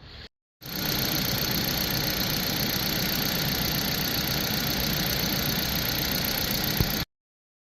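A vehicle engine running steadily at idle, cutting off abruptly near the end.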